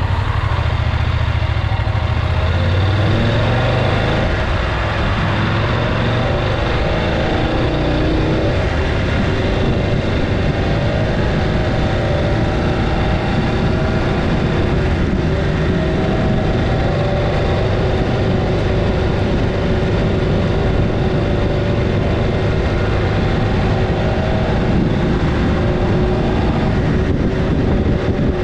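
Adventure motorcycle engine idling steadily, then pulling away about three seconds in with rising revs. It then runs at a steady riding speed with rushing wind and road noise.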